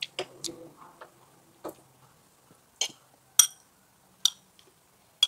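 Chopsticks and a ladle clinking against a ceramic bowl and a frying pan as hot pot food is picked out. About eight sharp, irregular clinks, the loudest a little past the middle.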